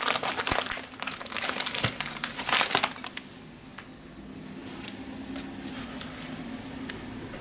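Plastic candy bag and individually wrapped hard candies crinkling as a hand rummages through them, stopping about three seconds in; after that only a few faint rustles.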